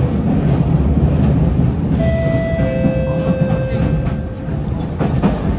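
Steady rumble of a Kawasaki C151A metro train running, heard from inside the carriage. About two seconds in, a two-note chime sounds, high then low.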